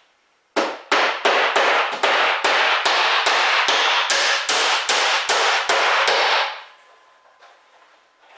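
Claw hammer nailing down an OSB shelf deck: a run of quick, even strikes, about four a second, that stops about six and a half seconds in.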